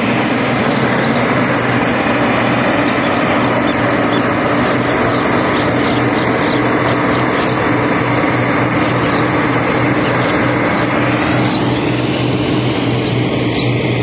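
New Holland combine harvester running steadily as it cuts and threshes ripe rice: a constant engine hum under the broad noise of the header and threshing drum. The higher part of the noise thins a little near the end.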